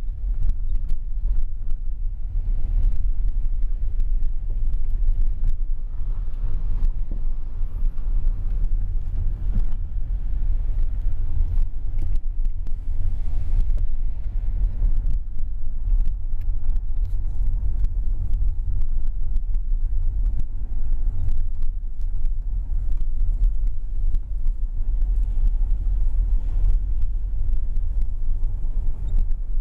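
A Toyota car driving over a rough, stony unpaved road, heard inside the cabin. There is a steady low rumble of engine and tyres, with frequent short knocks and rattles as the car jolts over the stones.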